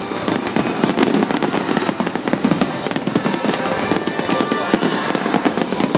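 Fireworks finale: a dense, unbroken barrage of bangs and crackles from many shells bursting at once.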